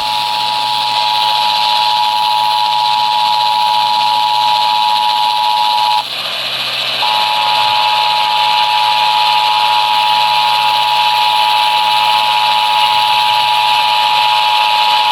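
Emergency Alert System two-tone attention signal, two steady tones sounding together, heard off a radio receiver over heavy static hiss. It cuts out for about a second some six seconds in, then resumes.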